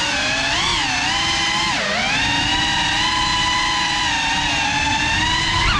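GEPRC CineLog35 cinewhoop's brushless motors and ducted propellers whining steadily. The pitch rises and falls with throttle, dropping sharply about two seconds in and climbing again.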